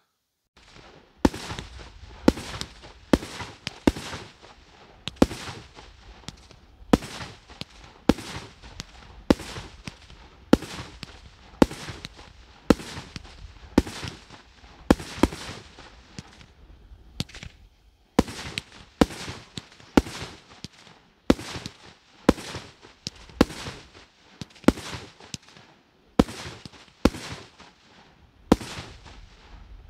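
Tannerite M-25 Air Burst salute cake firing shot after shot of very loud sharp bangs, each with a short echoing tail, roughly one every half second to second, with a pause of about two seconds past the middle. Only 24 of its 25 shots fire.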